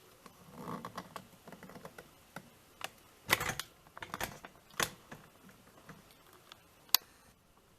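Irregular light clicks and knocks from objects being handled, with a few louder taps in the middle and one sharp click near the end.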